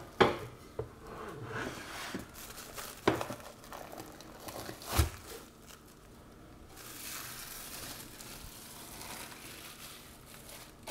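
Plastic cling film crinkling and rustling as it is peeled off a jellied terrine turned out of its mould, with a few dull knocks of the dish, the loudest about five seconds in.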